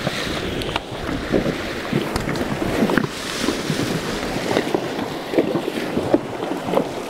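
Horses wading through a shallow, rocky river: irregular splashing of hooves in the water over the steady rush of the current, with some wind buffeting the microphone.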